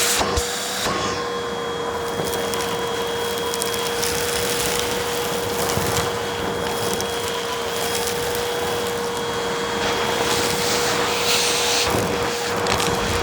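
Vacuum cleaner running with a steady motor whine over a rush of air, with fine crackling as crunchy debris is sucked up.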